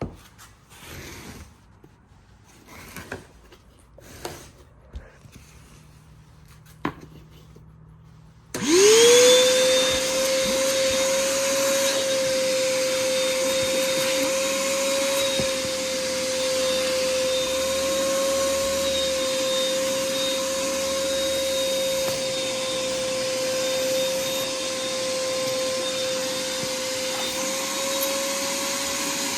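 Quiet handling rustles and clicks, then about eight seconds in a Stanley 1-gallon, 1.5 hp wet/dry shop vacuum is switched on. Its motor spins up within a second and runs at a steady pitch.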